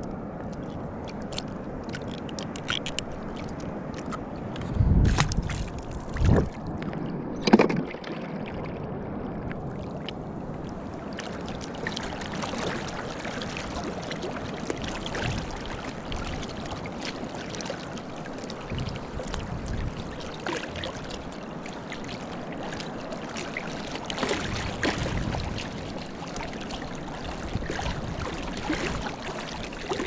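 Water sloshing and splashing around an inner-tube float as swim fins kick at the surface. There are three dull thumps between about five and eight seconds in.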